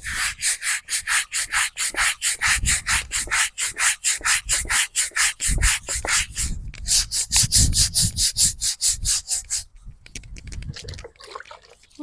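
A brush scrubbing a stone headstone wet with D2 cleaner, in quick back-and-forth strokes of about five a second. The strokes stop near the end, leaving only light, scattered rubbing.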